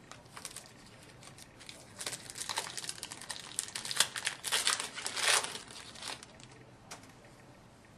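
Crinkling and tearing of a trading-card pack's wrapper as it is opened, in a dense run of crackly rustles for about four seconds.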